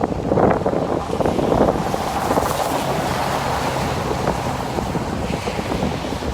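Tropical-storm wind blowing hard across the microphone in a steady low rumble, with waves washing in underneath.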